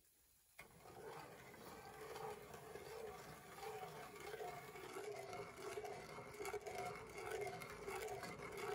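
Wooden spoon stirring a thin mixture of sugar, cornstarch and water in a saucepan: faint, repeated scraping and swishing that starts about half a second in.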